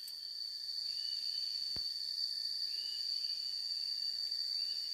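Insects droning in a steady high-pitched whine, with short chirps recurring every second or so and a single sharp click about two seconds in.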